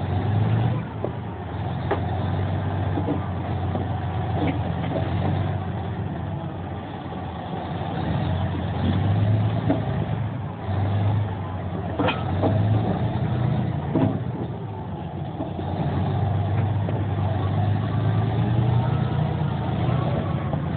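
Caterpillar D10N crawler bulldozer's V12 diesel engine running under load as the machine tracks slowly forward, the engine note swelling and easing. Scattered sharp clanks come from the steel track chains, the clearest near the middle of the stretch.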